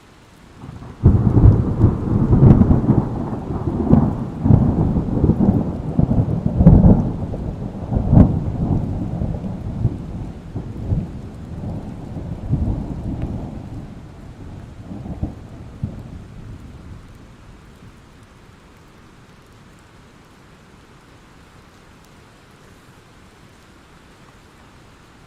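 A thunderclap bursts in about a second in, cracking with several sharp peaks and rumbling low, then rolls away and dies out over about fifteen seconds. Steady rain hisses underneath throughout.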